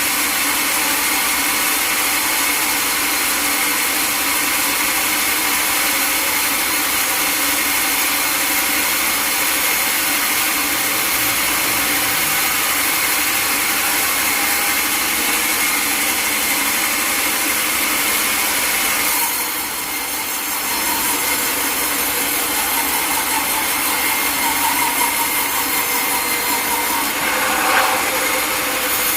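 Sawmill saw cutting through a log: a steady hiss of sawing with a high whine, which eases briefly about two-thirds of the way in before the cut carries on.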